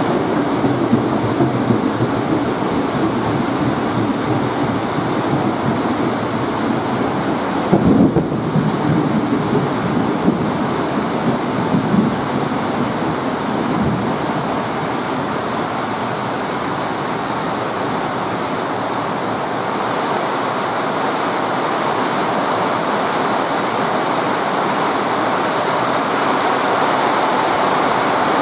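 Heavy rain pouring down steadily as a KRL electric commuter train runs past the platform, with thunder rumbling and a few louder low thumps near the middle.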